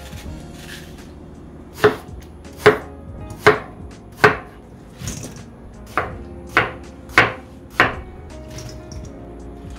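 Kitchen knife chopping through watermelon flesh and knocking on a cutting board: eight sharp chops, four evenly spaced, a short pause, then four more a little faster.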